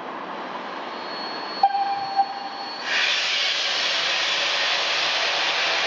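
BR Standard Class 4 2-6-4T steam tank locomotive hissing steam, with a short whistle note about two seconds in. From about three seconds in, a much louder steady hiss of steam blowing from its open cylinder drain cocks.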